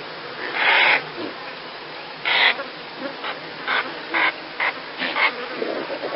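Impala calling: a series of short, breathy calls, two louder ones in the first few seconds and then quicker ones, about two a second.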